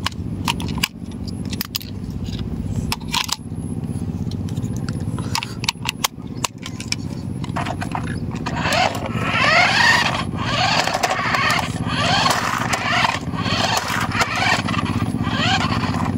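Plastic clicks and knocks as an RC car's handset is handled and its battery cover pressed shut. About halfway through, a toy RC car's small electric motor and gears start whirring in short spurts of rising whine as it is driven, over a steady low hum.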